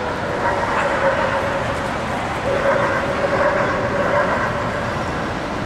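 Dogs barking and yipping over a steady background din, with a drawn-out pitched call held for about two seconds in the middle.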